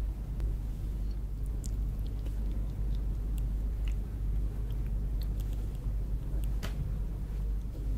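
Close-up eating sounds of lobster: scattered small clicks, crackles and chewing noises over a steady low rumble.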